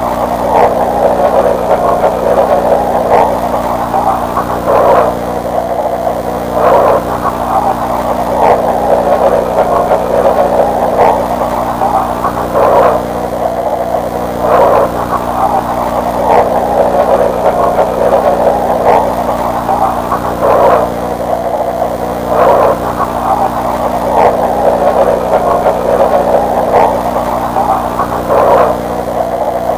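Stadium crowd noise on an old broadcast recording, swelling in a regular beat about every two seconds, over a steady low hum.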